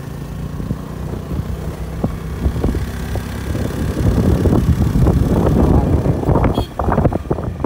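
Wind buffeting the microphone on a moving motorcycle, over the low hum of its engine; the buffeting grows louder about halfway through.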